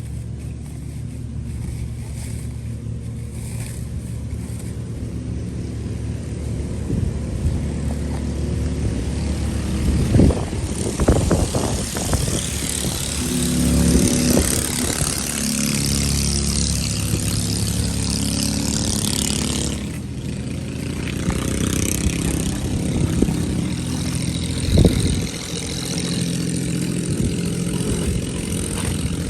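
An engine running steadily, with a few knocks and a stretch of high hissing noise partway through.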